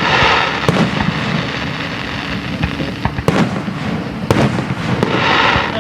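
Aerial fireworks bursting: a few sharp bangs, with a fizzing crackle of bursting stars near the start and again near the end.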